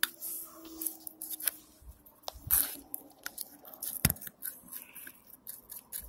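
A tube of white lithium grease being handled and squeezed out onto a fingertip: small clicks, crinkles and squishing, with a sharp tap about four seconds in.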